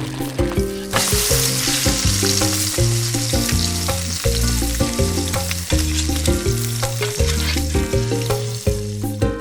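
Background music with a bouncy bass line, under a loud steady sizzling hiss that starts about a second in and fades near the end.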